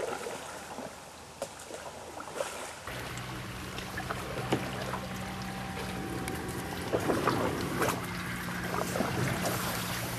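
Canoe moving through water: light lapping and dripping with scattered small knocks and splashes from a paddle and the hull. A steady low hum comes in abruptly about three seconds in.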